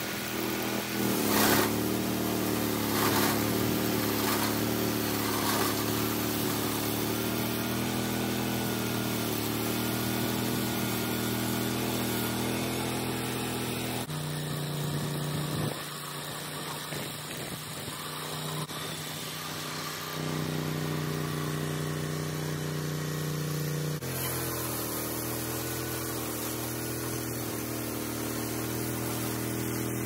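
Engine of a Range Road 5032 portable bandsaw sawmill running steadily, with a few short knocks in the first seconds. Its note shifts abruptly a few times.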